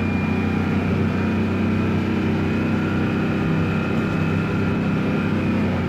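Bus engine running steadily: a low, even drone with a thin, steady whine above it.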